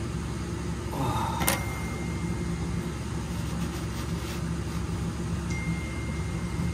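A steady low machine hum, with a sharp click about a second and a half in and a thin high tone that comes and goes.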